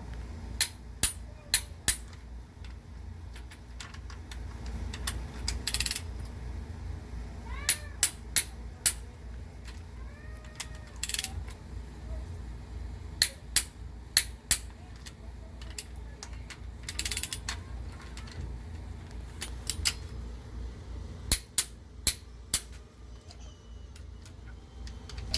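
Click-type torque wrench clicking as cylinder head bolts reach 60 ft-lb, in quick runs of three or four sharp clicks, with brief rasping sounds between the runs.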